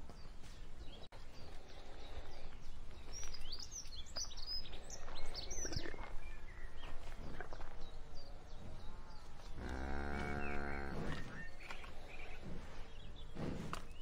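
Cattle grazing, with rustling and chewing noise throughout; birds chirp a few seconds in, and a cow moos once for about a second and a half partway through.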